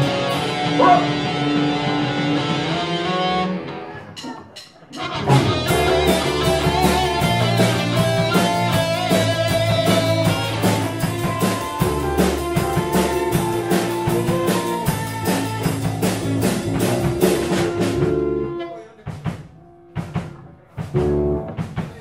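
Small rock band playing electric guitars and a drum kit. The playing breaks off about four seconds in, starts again a second later with a steady drum beat under guitar notes, and near the end falls apart into scattered drum hits and guitar notes, as in a sound check.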